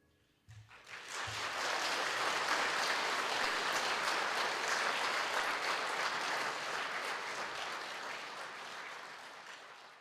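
Concert audience applauding at the close of the piece, starting about half a second in, steady, then slowly fading near the end.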